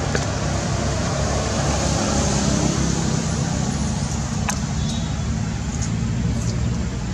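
Steady low background rumble and hiss, with a few faint clicks about four and a half seconds in.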